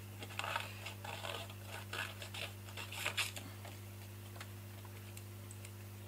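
Small craft scissors snipping through patterned paper in short, irregular cuts, busiest in the first three seconds and then only a few faint snips. A steady low electrical hum runs underneath.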